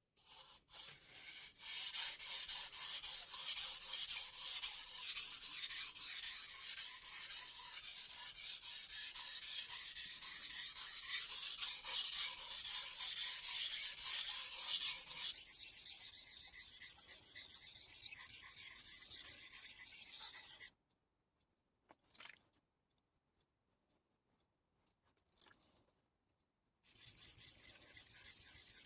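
Knife blade scraping back and forth on a 1000-grit Taidea whetstone in quick, rhythmic sharpening strokes. The strokes stop for several seconds, apart from a couple of brief sounds, then resume near the end.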